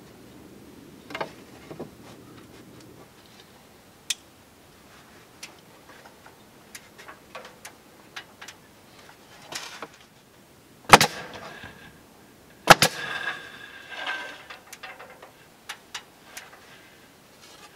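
Hand work on cedar shingle siding: scattered light clicks and taps from handling wood shingles and tools, with two sharp loud knocks a little under two seconds apart near the middle, the second followed by a brief rattle.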